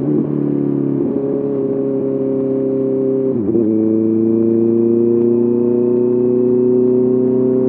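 Honda CBR 650R inline-four engine running through an SC Project SC1R exhaust while riding. The engine note dips briefly at the start and again about three and a half seconds in, then the revs climb slowly and steadily.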